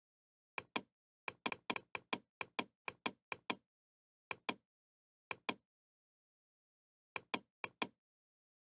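Computer mouse button clicking, each click a sharp press-and-release pair. A quick run of clicks comes over about three seconds, then a few more clicks after short pauses.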